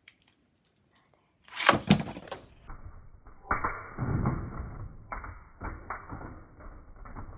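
Beyblade toy packaging being handled and opened by hand: a loud burst of crackling about a second and a half in, then irregular rustling and knocks of the box and its contents.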